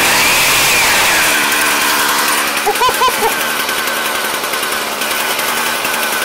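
Husqvarna 122HD45 hedge trimmer's small two-stroke engine running after starting, now that a new stop switch is fitted. Its pitch drops over the first second or so and then runs steady.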